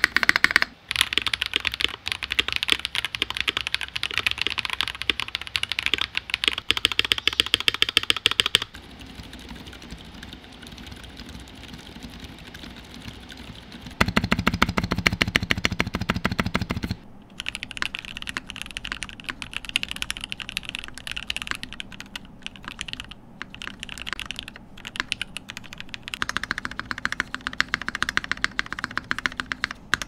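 Rapid typing on a D60 Lite polycarbonate 60% gasket-mount keyboard with GMK keycaps, many fast key clacks running together. The sound changes from section to section as the board is heard with different switches: Glorious Panda tactiles, Boba U4s and 8008 Inks. It turns quieter for a few seconds after about nine seconds, then louder again.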